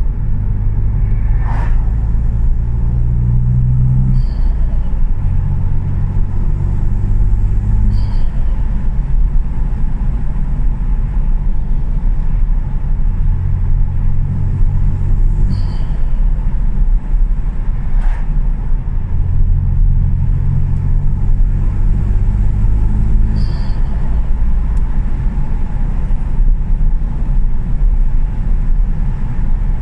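Ford Fiesta 1.0 EcoBoost three-cylinder turbo engine running and pulling up under throttle several times. Each pull ends with a short chirp as the throttle is lifted: the turbo flutter from an uprated recirculating dump valve venting boost.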